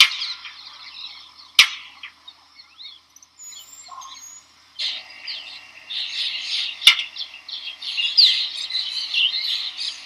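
Indian roller calls: a dense run of harsh chirps and squawks that quiets down about three seconds in, then grows louder again from about five seconds. Two sharp clicks, near two seconds and near seven seconds.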